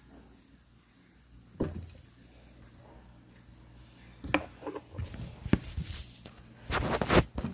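Handling noise: a single knock about a second and a half in, then an irregular run of light knocks, clicks and rustles that grows busier near the end.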